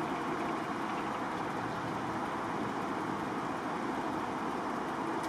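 Steady, even rush of distant road traffic, with no single vehicle standing out.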